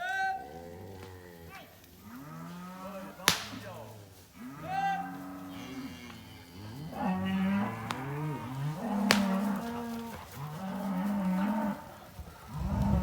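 A herd of cows and calves mooing and bawling, many calls overlapping, some higher-pitched than others. Two sharp cracks cut through, about three seconds in and again about nine seconds in.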